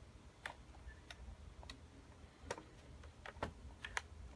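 A Macintosh PowerBook 180's plastic lid being folded shut: a scatter of light plastic clicks and taps, the loudest few in the second half as the lid comes down onto the base.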